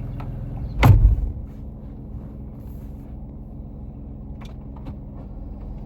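Jeep engine idling steadily with a low hum. About a second in there is a single loud, heavy thump.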